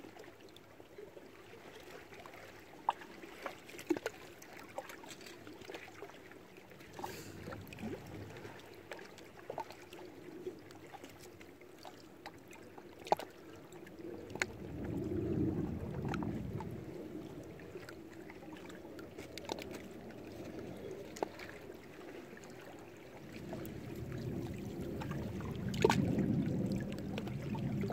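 Small choppy waves lapping and splashing against shoreline rocks, with frequent short, sharp splashes. A louder low rush comes in about halfway through and again near the end.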